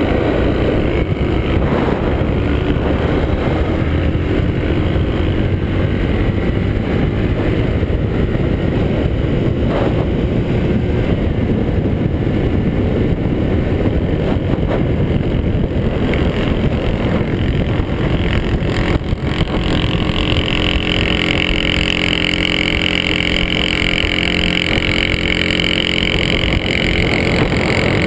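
A Yamaha motorcycle running steadily at cruising speed, with wind rushing over the microphone. From about twenty seconds in, a second, higher engine note joins as another motorcycle is closed in on.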